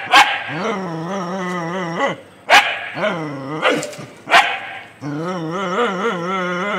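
Dog barking at a kitten: several short, sharp barks between long, wavering drawn-out growling cries.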